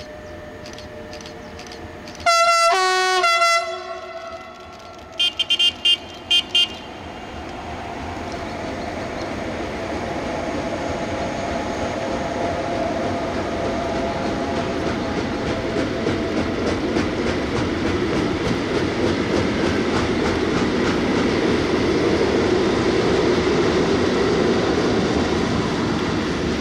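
Two-tone Makrofon horn of a Class 185 electric locomotive: one blast that steps from a high to a lower chord about two seconds in, then five short high-pitched tones a couple of seconds later. After that the long freight train's wagons rumble past, the rolling noise building steadily and staying loud.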